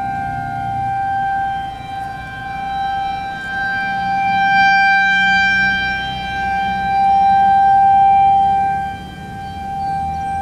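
Federal Signal 2001-SRNB rotating outdoor warning siren sounding a steady single tone, swelling and fading in loudness as it turns. Other sirens are faintly heard at slightly different pitches.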